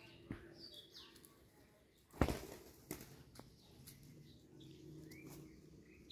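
Small birds chirping sporadically in the background, with one sudden loud rustle about two seconds in.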